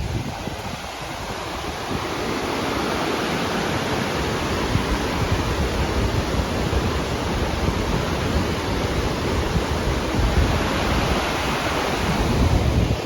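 Wind buffeting the microphone: a steady rushing noise with a gusty low rumble, building over the first couple of seconds.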